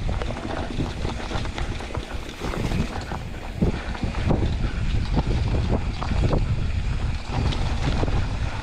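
Wind buffeting the action-camera microphone, mixed with the steady rattle and irregular knocks of a mountain bike rolling over a rough, rocky dirt track.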